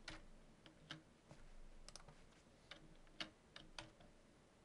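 Faint, irregularly spaced clicks of a computer mouse and keyboard over quiet room tone.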